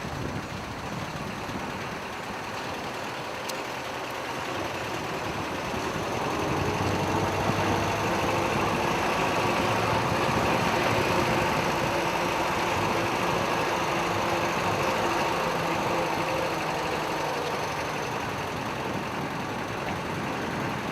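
Motor vehicle engine running close by, with a steady hum that grows louder about six seconds in and eases off toward the end.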